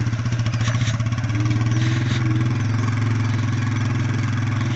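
Motorcycle engine running steadily at low speed: a low, even hum with a fast regular pulse. A faint higher whine rises slightly about a second and a half in.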